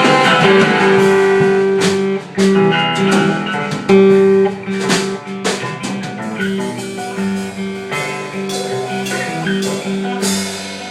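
Instrumental passage of a rock song: guitar playing held and picked notes over light drums, with no singing.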